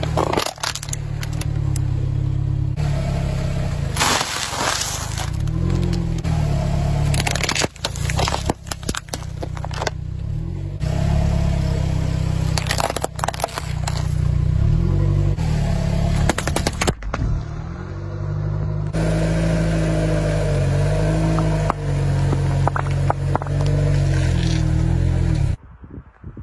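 A car's tyre rolling slowly over small objects on asphalt, one after another, with a low engine and tyre rumble and sharp crackling and crunching as each object is crushed. The sound cuts abruptly from one object to the next and turns much quieter near the end.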